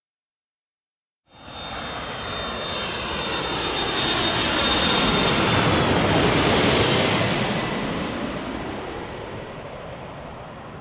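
Airplane flying past overhead. It starts abruptly about a second in, swells to its loudest past the middle, then slowly fades, with a high engine whine that drifts slightly down in pitch.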